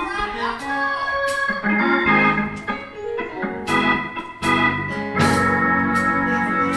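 Organ playing sustained, shifting chords, with several sharp percussive hits over them, as the instrumental lead-in to a gospel song.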